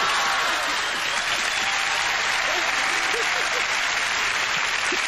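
Crowd applauding steadily, with a few voices calling out over the clapping.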